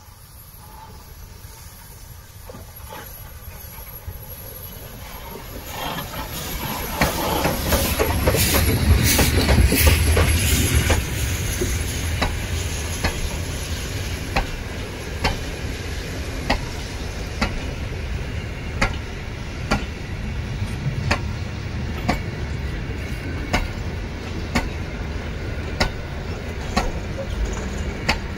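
German class 52 steam locomotive 52 8082-1 approaching and passing, its noise building and loudest about seven to eleven seconds in. Its train of carriages and goods wagons then rolls by, wheels clicking over the rail joints about once a second.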